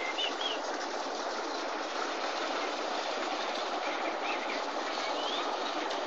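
Motor cargo barge's diesel engine running steadily as the barge passes close by. Small birds chirp faintly a few times.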